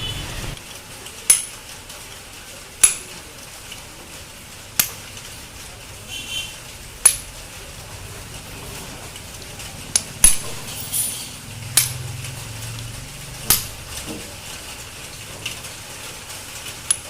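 Hammer blows on a metal punch, about nine sharp metallic strikes spaced a second or two apart, peening the bearing seat in an e-rickshaw gearbox housing. The staking takes up play in a bearing that had worked loose in its seat, the cause of a 'kat kat' knock from the differential.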